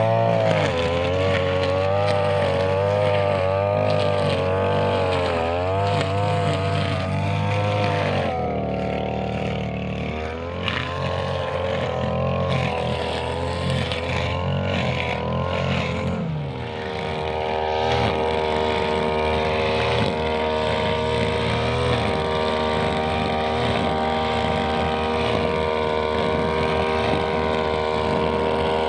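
Brushcutter engine running while cutting grass, its pitch rising and falling as the load changes, then holding steady from about halfway through.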